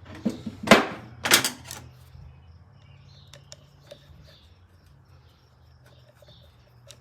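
Small parts of a disassembled motorcycle throttle assembly handled on a bench: a quick run of sharp clicks and light knocks in the first two seconds, then a few faint ticks, over a low steady hum.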